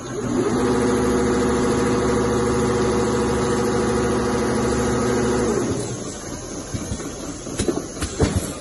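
Two-head CNC leather pattern sewing machine stitching at speed: a steady pitched motor whir that speeds up just after the start, holds for about five seconds, then winds down and stops. A few short clicks follow near the end.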